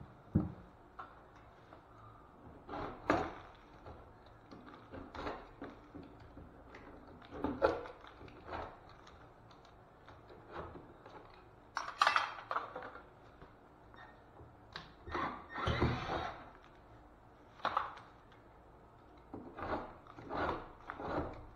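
Irregular knocks, clicks and short scrapes of a hand tool working staples and nails out of the wood framing and drywall edges of an open wall cavity. A few longer scraping spells stand out among the knocks.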